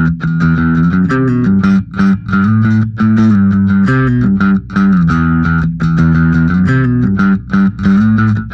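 Ibanez SRMS725 five-string multiscale bass with Fishman pickups played fingerstyle with a light overdrive tone: a riff of short, separated plucked notes.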